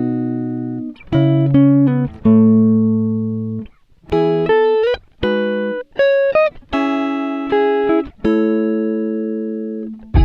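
Background music: guitar-like plucked chords and single notes, each struck and left to fade, in a slow melody.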